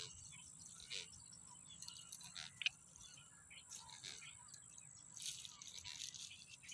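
Faint outdoor background: a steady high-pitched whine with scattered short chirps and clicks.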